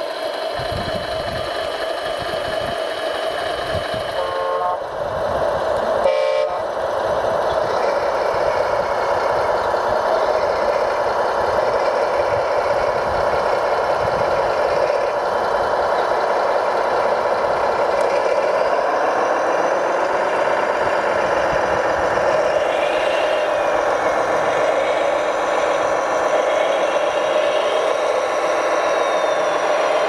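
Radio-controlled model wheel loader and truck during a chain tow: a steady engine-like drone, with two short horn toots about four and a half and six seconds in. The drone swells up and back down in pitch around twenty seconds in.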